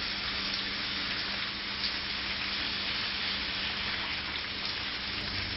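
Thin steaks sizzling in butter in a hot skillet, a steady, even hiss.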